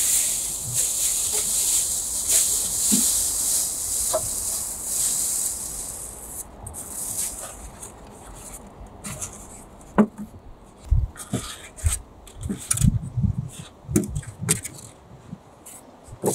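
A large plastic bag rustles and crinkles as insulation boards are pulled out of it. After that come scattered knocks and dull thumps as the boards are handled and set down between the floor joists.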